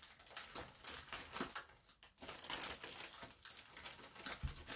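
Clear plastic bag of small bagged diamond-painting drills crinkling and rustling as hands rummage through it, in a quick run of short crackles.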